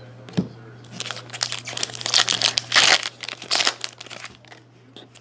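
Crinkling and rustling of a plastic trading-card pack wrapper being handled and opened, loudest two to three seconds in and dying away near the end.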